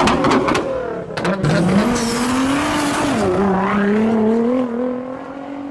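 Car engine revving, with a few sharp pops near the start, then an engine note that climbs, dips about three seconds in, and climbs slowly again.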